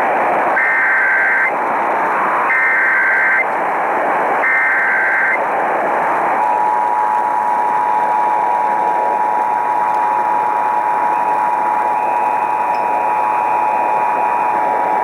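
Emergency Alert System signal received over a hissy radio: three short SAME header data bursts (the 'burps') about a second apart, then the steady two-tone EAS attention signal starting about six seconds in. Together they open a required monthly test of the Emergency Alert System.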